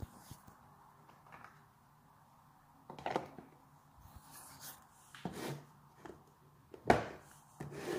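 A few separate knocks and clatters of things being handled on a kitchen counter, the loudest about seven seconds in, over a faint low hum.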